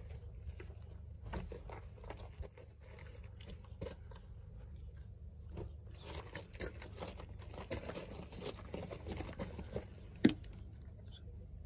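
Small metal clicks and rustling of gloved hands fitting a washer and circlip onto a chainsaw's crankshaft at the clutch drum, with one sharper click about ten seconds in.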